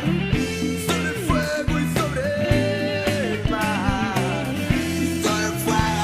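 Background rock song in Spanish, with a sung vocal melody over guitar and drums keeping a steady beat.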